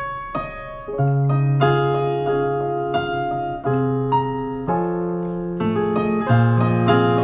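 Piano music: struck chords held under a simple melody, the notes changing about once a second.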